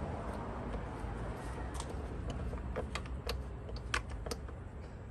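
Irregular sharp clicks and light taps of tools and parts being handled, bunched together in the second half, over a steady low rumble of wind on the microphone.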